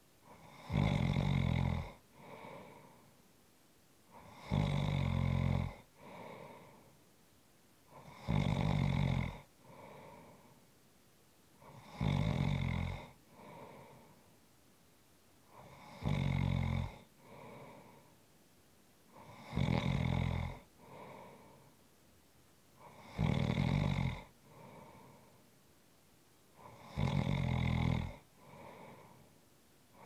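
A person snoring in an even rhythm: eight loud snores, one about every four seconds, each followed by a shorter, softer breath sound.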